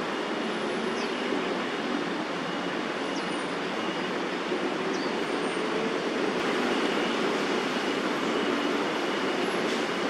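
Steady background roar of city traffic, with a few faint, short, high chirps.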